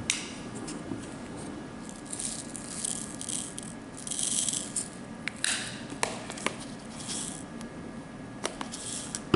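Plastic diamond-painting drills rattling in a tray, shaken in several short bursts, with a few sharp clicks.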